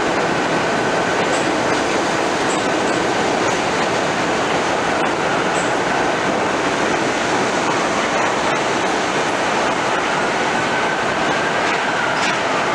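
New York City subway train running along the platform: a steady loud rumble and rattle of wheels on rail, with a faint thin whine from the wheels that swells near the end.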